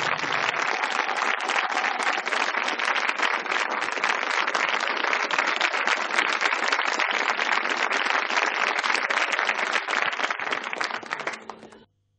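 Studio audience applauding, a steady dense clatter of many hands that fades and stops shortly before the end.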